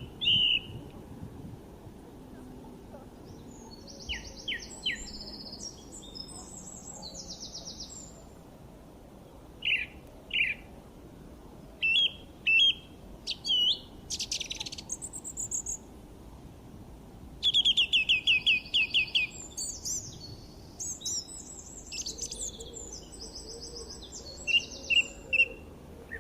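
Songbirds singing: a varied run of high chirps, whistled notes and fast trills in separate phrases with short pauses between them, including a rapid series of about eight loud notes a little past the middle.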